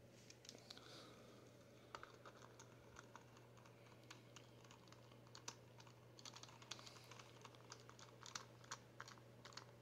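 Faint, irregular light clicks and ticks of a small hand driver working the wheel nut on an RC crawler's plastic wheel hub while the tyre is handled, busier in the second half, over a steady low hum.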